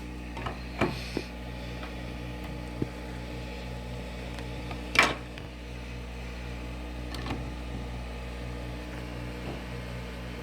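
A few sharp hard-plastic clicks and knocks, the loudest about five seconds in, from handling the 3D-printed battery holder and M12 batteries, over a steady low hum.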